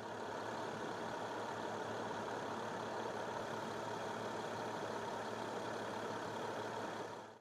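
An engine running steadily at idle, a constant noisy drone with a faint low hum, cutting off suddenly at the end.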